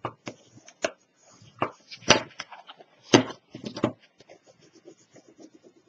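Stiff cardstock handled and folded on a cutting mat: a string of sharp taps and knocks with light rustling between, the loudest about two and three seconds in.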